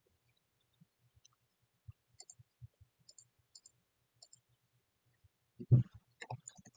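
Computer mouse clicks and keyboard taps, small and scattered, some in quick pairs, with a louder cluster of taps near the end.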